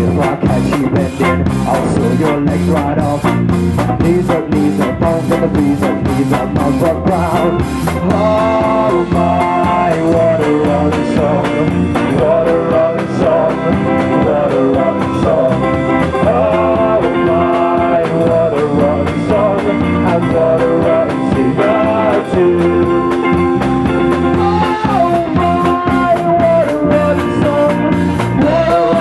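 Live rock band playing a song on electric guitar and drums. A singer comes in about eight seconds in, and the cymbals thin out at that point.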